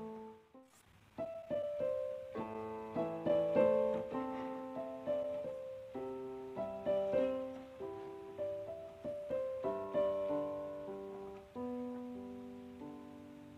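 Background piano music: a slow melody of struck notes that fade after each strike. It breaks off for a moment near the start and comes back about a second in.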